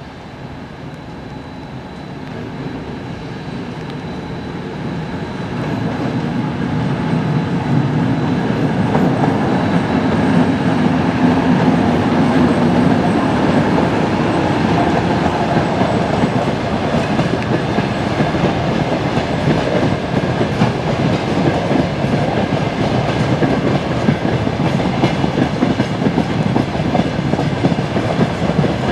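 Diesel engine of a 2M62M twin-section diesel locomotive growing louder over the first several seconds as it approaches, then holding loud as the train passes, with wheels clattering over the rail joints.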